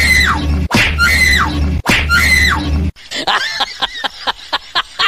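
A high shriek sound effect, played three times in a row, each cry about a second long and falling in pitch over a low rumble. About three seconds in it gives way to a rapid snickering laugh.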